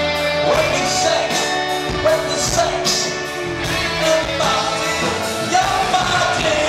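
Live rock band playing loudly, with a male lead vocalist singing over guitar, bass and drums that keep a steady beat.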